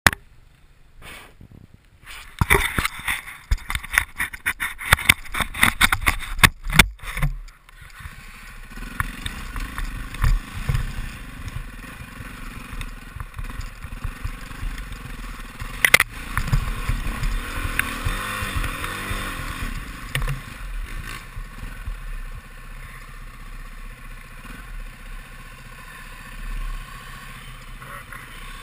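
Enduro dirt bike engine running and revving up and down as it is ridden along a rough trail, heard from a helmet-mounted camera. Loud clattering and knocking for a few seconds near the start.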